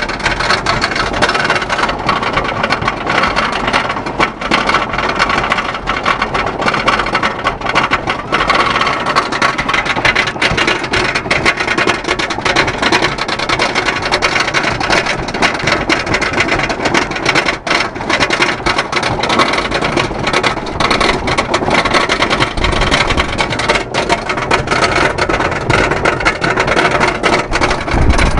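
Wooden roller coaster train climbing the chain lift hill: a steady, dense clatter of rapid clicks and rattling from the lift chain and the train's anti-rollback dogs.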